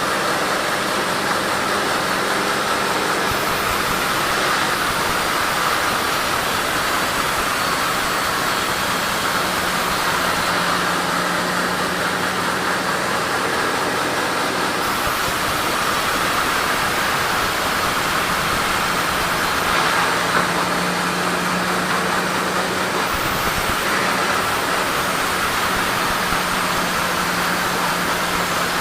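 Sawmill saw running steadily while sawing a mahogany log, a continuous mechanical noise with a low hum that comes and goes.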